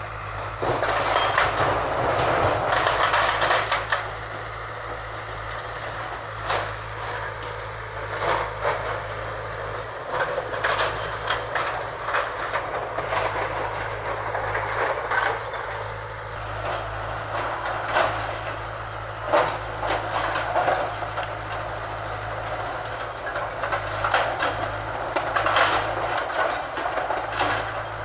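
Excavator diesel engine running steadily while its hydraulic breaker works a rock face, hammering loudest in the first few seconds, with irregular sharp knocks of steel on stone after.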